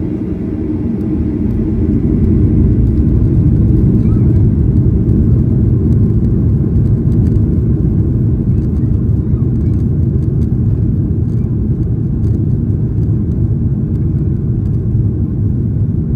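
Inside the cabin of a Boeing 737: the jet engines at takeoff power and the rumble of the wheels on the runway as the plane rolls for takeoff. The noise is low and steady, growing louder over the first few seconds and then holding.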